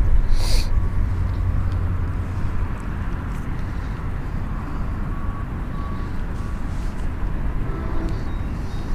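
Wind buffeting the microphone: a steady low rumble, strongest in the first second, with a brief hiss about half a second in.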